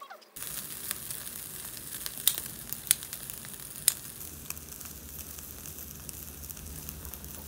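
Meat and squid sizzling on a wire grill over a charcoal shichirin, a steady hiss that starts abruptly just after the start, with a few sharp pops and clicks between about two and four seconds in.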